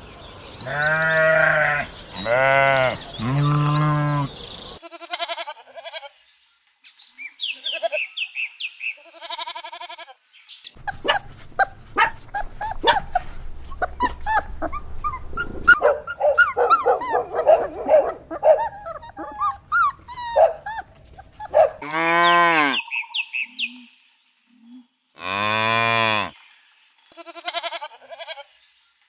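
A series of farm animal calls. Three long bleats open it, and two more come near the end. Between them are shorter, higher calls and a busy stretch of many quick overlapping calls.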